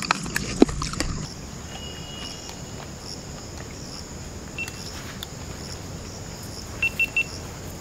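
A steady, high-pitched drone of insects in the forest, with a few sharp knocks and clicks in the first second and short high chirps, three in quick succession near the end.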